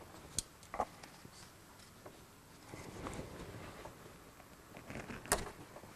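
Gloved hands working the fuel filter's line fittings: a few faint clicks and knocks with some rustling, the loudest click near the end.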